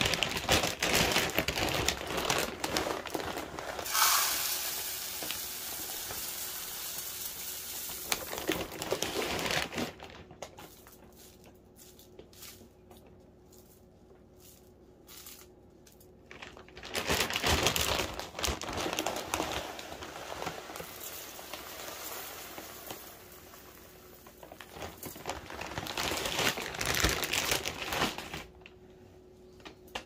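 Plastic bag of mixed wild bird seed crinkling as it is handled, with loose seed pouring and rustling. It comes in three spells, the longest at the start, with quieter stretches between.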